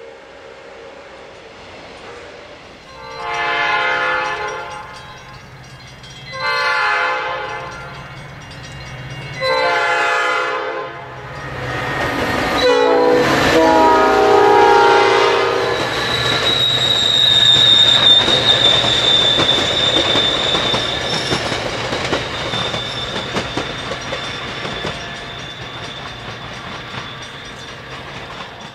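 A train horn blows three long blasts, a short one and a final long one: the long-long-short-long warning for a grade crossing. A train then rushes close past with wheel clatter and a steady high squeal, fading toward the end.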